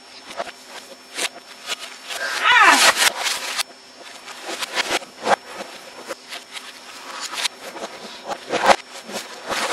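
Computer keyboard keys clattering in irregular clicks, played backwards. A short vocal sound slides down in pitch between two and three seconds in.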